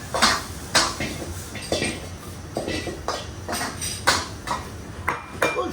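Metal wok ladle clanking against a steel wok over and over, about two irregular strikes a second, as fried rice is stir-fried and tossed over a steady low background noise.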